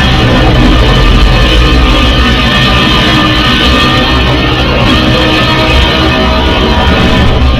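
Custom Mechagodzilla sound effect: one loud, sustained distorted roar, a steady low drone under a harsh, guitar-like layer, dropping away at the very end.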